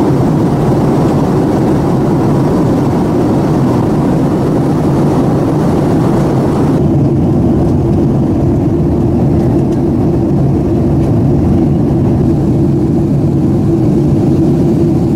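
Steady engine and airflow noise inside a jet airliner's cabin during descent, a low even rush. About seven seconds in, the higher hiss above it drops away abruptly.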